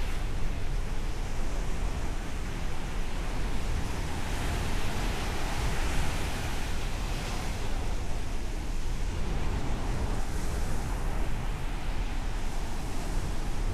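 Ocean surf: a continuous rush of waves breaking and washing ashore, with a deep low rumble underneath, swelling a little louder about a third of the way in and again later on.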